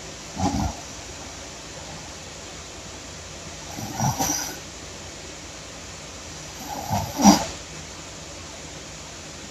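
A woman snoring loudly, three snores about three seconds apart, over a steady background hiss.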